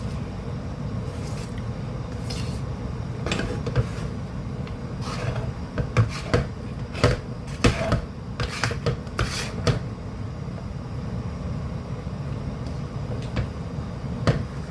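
A utensil scraping and knocking against a cooking pan while stirring a thick, sticky calamay mixture. There are irregular clacks and scrapes, busiest in the middle, over a steady low hum.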